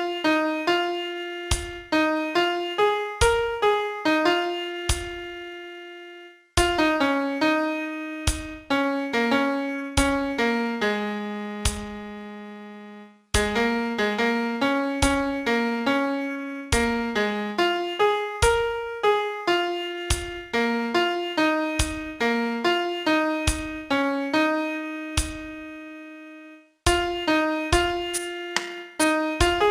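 Piano sound playing a song melody one note at a time, each note struck and fading, in phrases separated by short breaks.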